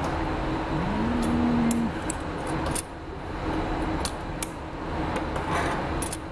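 Metal glassblowing hand tools clinking against the blowpipe and the glass piece at the workbench: a scattering of sharp clicks over a steady low rumble of the hot shop's furnaces.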